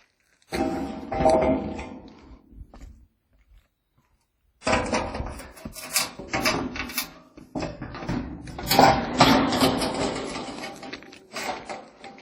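Clatter and knocks of sheet-metal roofing being handled, in two stretches: a short burst with a faint metallic ring, a brief silence, then a longer run of busy knocking and rattling.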